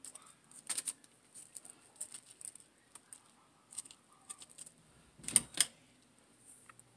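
Scattered light clicks and rustles of artificial plastic leaves being handled and pressed into place, with two sharper snips of scissors about five seconds in.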